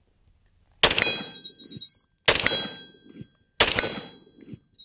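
Three rifle shots from an AR-15, spaced about one and a half seconds apart. Each is followed by the ringing of the steel silhouette target as the bullet hits it.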